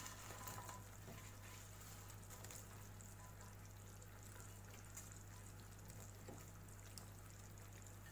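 Near silence: a low steady hum and faint hiss, with a few faint soft sounds in the first second.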